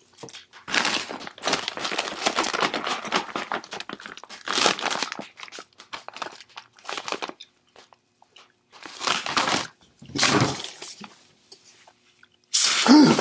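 Foil chip bag of Doritos crinkling and tearing as it is handled and opened, in a long rustle and then several short bursts. Near the end comes a sudden louder burst as a plastic soda bottle is twisted open.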